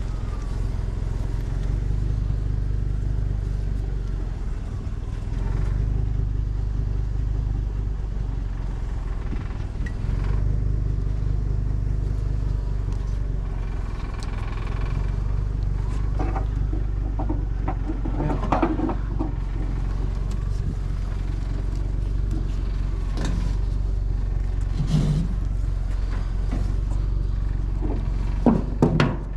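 A truck engine idles steadily. From about halfway through come scattered metallic knocks and rattles of a load being handled and strapped, the sharpest just before the end.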